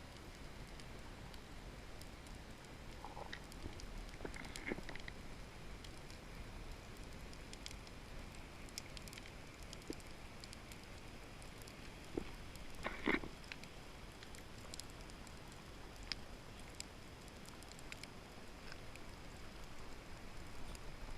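Underwater ambience heard through a camera housing: a faint steady crackle with scattered clicks and pops, and a louder short burst about thirteen seconds in.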